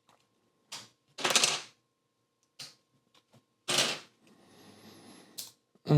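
LEGO plates being pried off a baseplate: about five sharp plastic snaps and clicks, the loudest about a second and a half and four seconds in.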